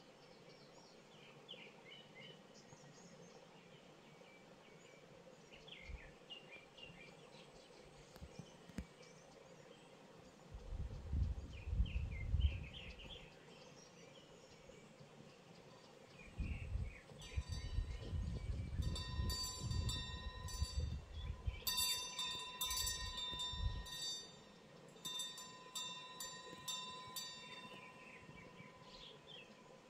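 Small birds giving short chirps on and off, an evening bird chorus. Two stretches of low rumbling, about 11 seconds in and again from about 16 to 24 seconds in, are the loudest sounds. From about 17 seconds in, a steady ringing tone with several overtones comes and goes until near the end.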